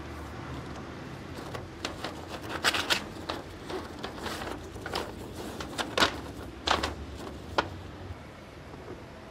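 A run of irregular sharp clicks and rustles, loudest in the middle, over a low steady hum.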